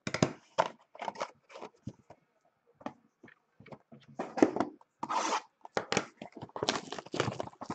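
Cardboard trading-card boxes handled, stacked and slid across a table: a quick run of short rustling and scraping noises.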